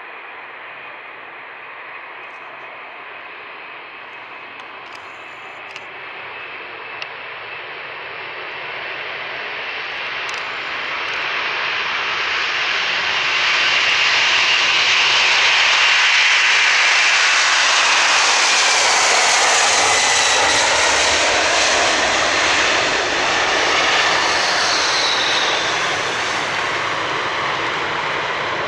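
Boeing 747-400's four turbofan engines at takeoff thrust. The jet roar builds as the airliner rolls down the runway and passes, is loudest around the middle, then eases a little with a falling whine as it lifts off and climbs away.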